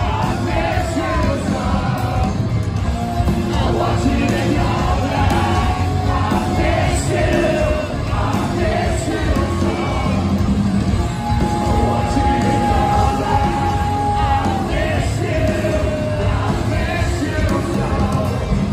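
Live post-hardcore rock band playing through a concert PA: distorted electric guitars, bass and drums under a lead vocal, heard from among the audience. A long held note comes in about halfway through.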